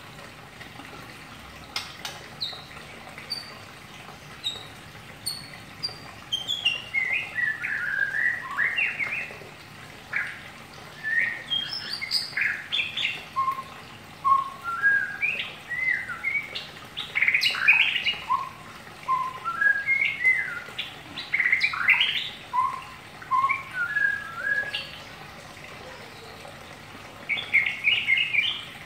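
Caged white-rumped shama singing the soft, chattering twitter that keepers call ngeriwik: short whistled notes and chirps, sparse at first, then coming in quick phrases with brief pauses.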